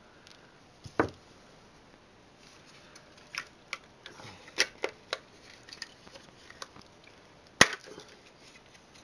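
Scattered sharp clicks and knocks of hand tools and small metal and plastic parts being handled during the teardown of an electronic device, with one loud sharp snap about three quarters of the way through.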